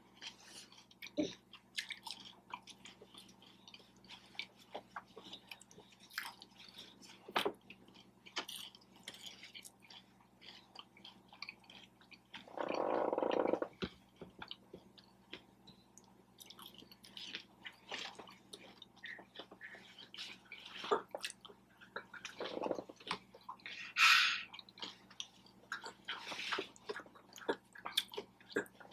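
Close-up chewing and mouth sounds of a person eating a pulled pork sandwich: many short, wet clicks and smacks. A louder, muffled sound lasting about a second and a half comes near the middle.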